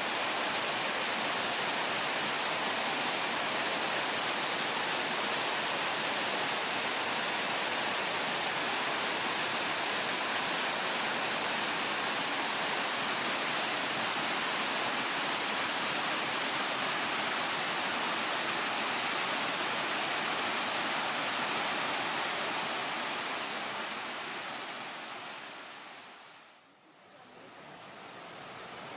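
Stream water rushing and tumbling over rocks, close to the microphone, in a steady rush. Near the end it fades out over a few seconds and a quieter water sound comes back.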